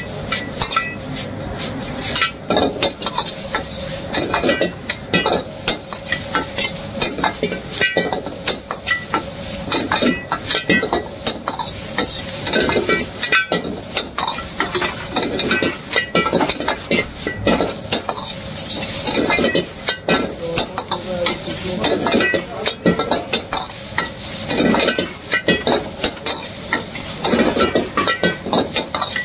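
Noodles and vegetables sizzling in a hot wok while they are stir-fried, with a metal ladle scraping and clanking against the wok many times over.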